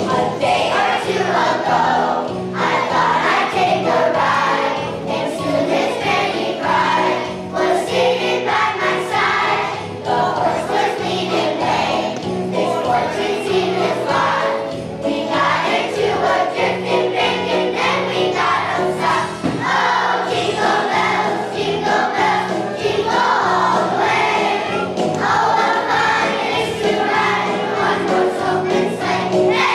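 Choir of young children singing a Christmas song together over an instrumental accompaniment.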